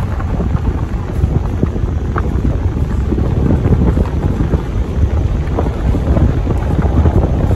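Car tyres rolling along a gravel road, heard from inside the car: a steady low rumble with scattered small clicks of loose stones.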